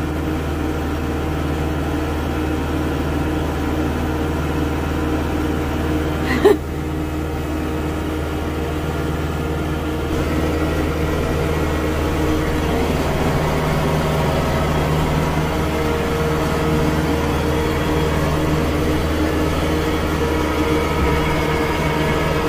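Kubota tractor's diesel engine running steadily under load, heard from inside the cab as it drives through muddy ruts; the engine note grows a little louder from about ten seconds in. A brief, loud higher-pitched sound cuts in once, about six and a half seconds in.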